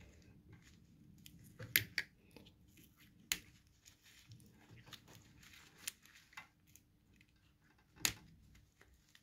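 Side cutters snipping and picking apart electrical tape wrapped around a wiring connector: a few sharp clicks and snips, the loudest about eight seconds in, with faint rustling of tape between.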